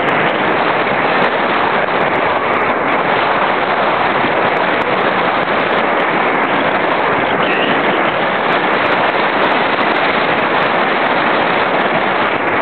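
Wind rushing over the microphone of a small camera mounted on an RC glider in flight: a loud, steady rushing noise with scattered crackles.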